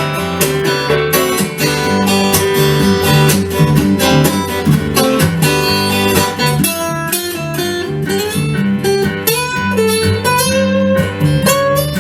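Acoustic guitar playing an instrumental blues passage, plucked melody notes over a steady bass pattern, with a note sliding upward near the end.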